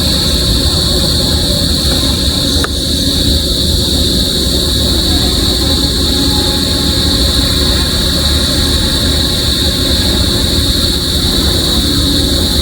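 Steady low engine drone of heavy construction machinery, with a constant high hiss above it and one brief click about two and a half seconds in.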